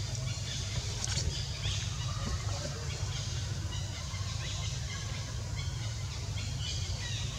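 Outdoor ambience: a steady low rumble under scattered short, high chirps.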